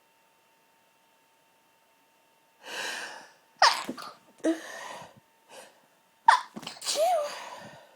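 Stifled sneezes held back hard: a gasping inhale, then a sharp choked sneeze, some short breaths, and a second stifled sneeze near the end followed by a short voiced exhale.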